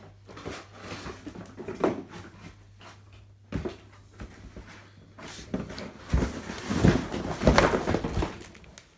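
Handling of the unboxed Dyson V7 Animal's parts and packaging: scattered clicks, a sharp knock about three and a half seconds in, then a few seconds of rustling and clattering near the end.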